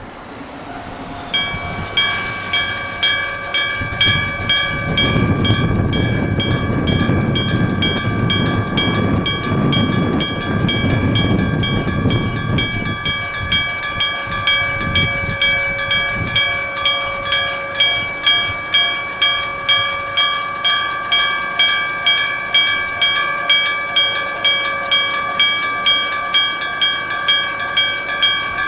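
Old-style electric-bell level crossing alarm, its bell on the crossing post struck directly in a steady clanging "kan, kan, kan", roughly two strokes a second, starting about a second and a half in. A train rumbles past from about five to thirteen seconds in.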